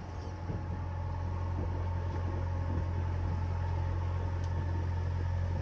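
A sailboat's inboard diesel engine running steadily at low speed, a deep even hum.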